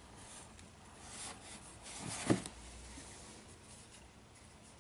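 Faint rubbing and handling sounds of a weighty diorama terrain piece being turned over in the hands, with one soft knock about two seconds in.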